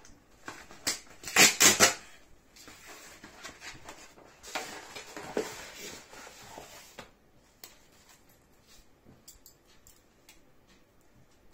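Cardboard mailer being torn open: a loud rip of the tear strip about a second and a half in, then a longer rustling, scraping stretch as the package is opened and the CD taken out. Near the end come only faint ticks and crinkles as scissors are worked at the CD's plastic wrap.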